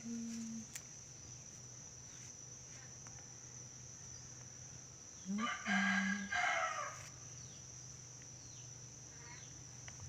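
A yellow-crested cockatoo gives one loud call about halfway through, lasting about a second and a half in two parts.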